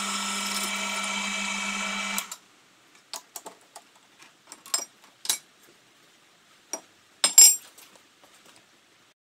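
Milling machine spindle and motor running steadily with a hum, then stopping about two seconds in. Scattered metallic clicks and knocks follow as parts are handled at the rotary table's chuck, the loudest a sharp clank near the end.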